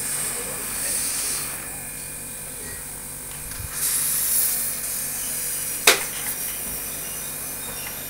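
Compressed air hissing out of a leak in a refrigerator's cooling pipe, charged by a separate compressor for leak testing; the hiss is the sign of the leak. It swells and fades, loudest near the start and again about four seconds in, with one sharp click about six seconds in.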